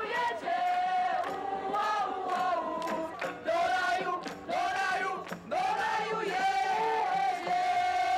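A crowd of pilgrims singing together in unison, high voices carrying one melody with held notes, ending on a long held note.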